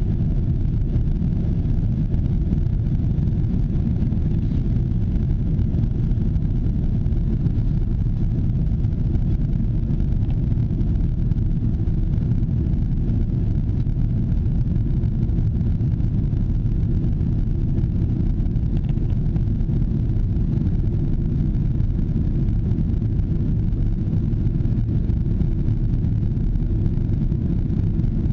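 Jet airliner cabin noise in flight: a steady low rumble of engines and airflow heard from inside the passenger cabin, unchanging throughout.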